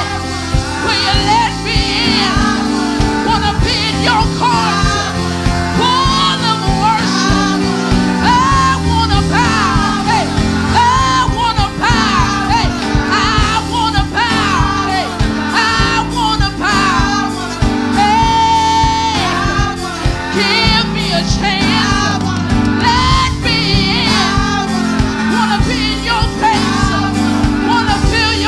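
Gospel praise team of women singing together into microphones over a steady instrumental accompaniment with keyboard and a beat.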